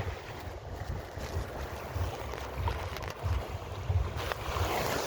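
Mediterranean sea waves washing onto a beach, with wind buffeting the microphone in gusts. A wave breaks and washes in near the end.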